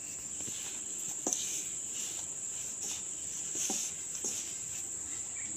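A hand rubbing and mixing dry ragi flour with chopped drumstick leaves in a steel bowl: faint rustling with a few light taps, over a steady high-pitched insect-like drone.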